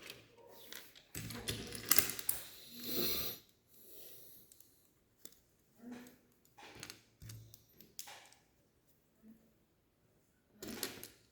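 Plastic Lego pieces being handled and snapped together, clicking and rattling. A busy run of clicks comes in the first few seconds, then scattered single clicks, and a louder burst near the end.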